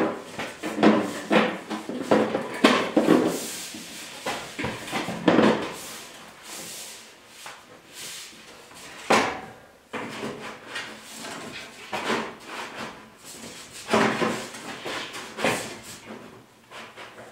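Black sheet-steel stove pipe sections being fitted together and handled into place: irregular metal scraping, sliding and knocking, with a sharper clunk about nine seconds in.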